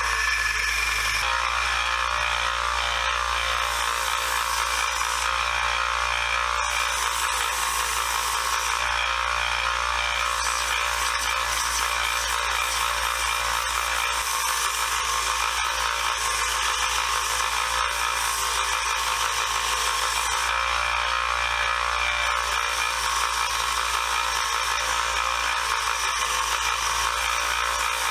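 Electric power tool running steadily under load, cleaning up a screwdriver, with a continuous abrasive hiss over a low motor hum.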